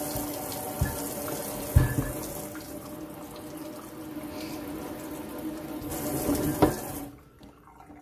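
Kitchen faucet running water into a leather cowboy boot, with a few thumps along the way; the water shuts off about seven seconds in.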